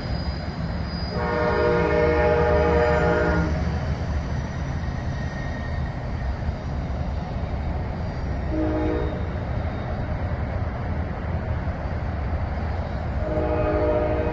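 Distant locomotive horn: a long blast of about two seconds, a short toot several seconds later, and another long blast starting near the end, over a steady low rumble.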